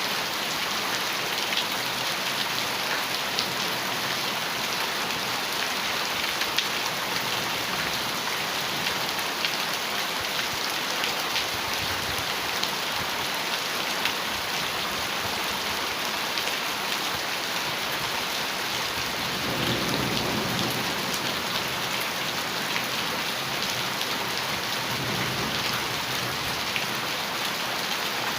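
Heavy rain drumming steadily on a metal roof, with many fine drop ticks in the hiss. A low rumble of thunder swells about two-thirds of the way through and briefly again near the end.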